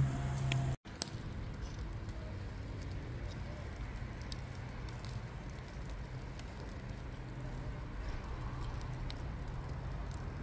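A steady low hum cuts off under a second in. Then a charcoal and wood grill fire crackles with sparse faint pops over a low steady rumble.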